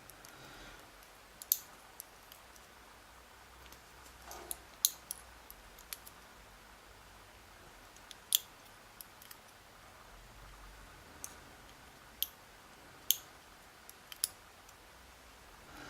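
Scattered small, sharp clicks of tiny metal lock driver pins being picked out and set down one by one, about a dozen in all, with no steady rhythm.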